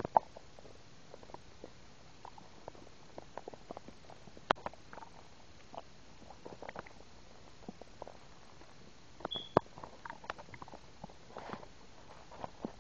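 Stomach gurgling: an irregular run of short pops and bubbling gurgles, with one brief high squeak about nine seconds in.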